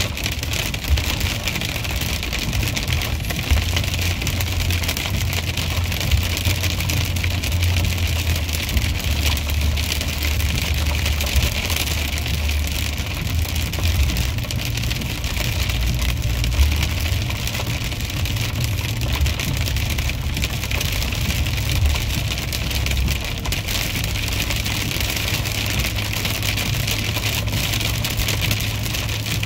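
Sleet and rain pelting the car's windshield and roof, heard from inside the cabin as a steady hiss with occasional louder ticks, over the low rumble of the car driving on a wet road.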